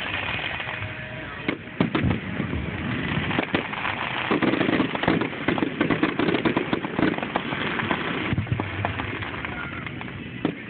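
Fireworks going off: irregular bangs and crackles, many in quick succession, over a steady background noise.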